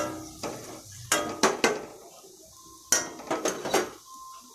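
A metal ladle stirring in a stainless steel kadai of frying mustard seeds, garlic and ginger, scraping and clanking against the pan. The clanks ring and come in two bunches, about a second in and about three seconds in.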